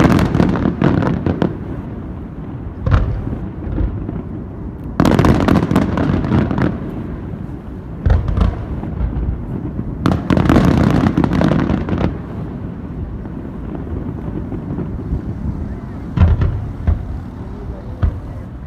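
Aerial fireworks shells bursting in repeated booms, with two long volleys of rapid crackling near the middle.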